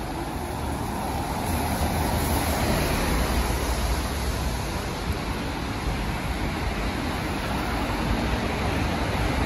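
Steady road traffic noise with a strong low rumble, growing a little louder about two seconds in.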